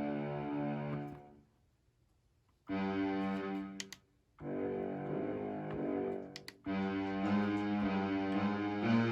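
Akai MPK Mini Play MK3 keyboard's built-in sounds being played: held chords in short phrases that break off into silence about a second and a half in and again near four seconds before starting up again. A few sharp clicks come just before the second and third phrases.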